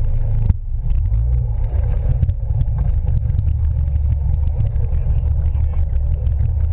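Yamaha outboard motor running under way, pushing the speedboat and towing an inflatable ring, heard as a heavy, steady rumble mixed with rough rushing wind buffeting the microphone. There is a brief sudden drop about half a second in.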